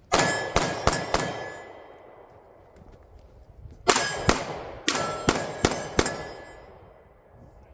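Rapid pistol fire at steel targets: four quick shots and metallic clangs, a pause of nearly three seconds, then six more in about two seconds. Each hit is followed by the steel plates ringing out.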